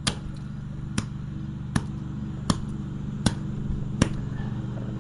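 Six sharp blows struck one after another, about one every three-quarters of a second, smashing an alarm clock. A steady low hum runs underneath.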